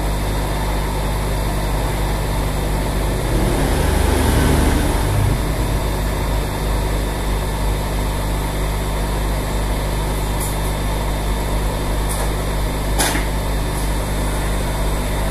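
Hot air rework blower running steadily: the fan's rushing air and a low hum as it heats a phone board's CPU at about 400 °C to loosen it. A few brief clicks come in the second half.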